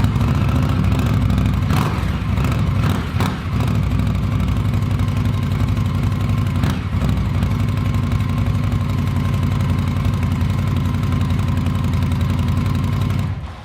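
A 2016 Indian Scout's V-twin on its stock mufflers, started from cold and idling steadily, then shut off near the end.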